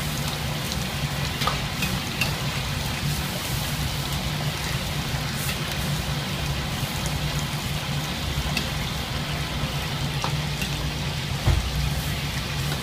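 Water boiling hard in a wok as a metal ladle stirs noodles and greens through it, with a steady low hum underneath. A few scattered clicks of the ladle against the wok, the loudest knock near the end.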